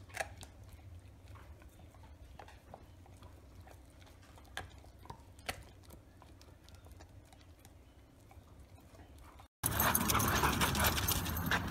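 An Irish wolfhound gnawing on a chew held between its paws: faint, scattered clicks and crunches over a low hum. About nine and a half seconds in, it cuts to a much louder, steady rushing noise.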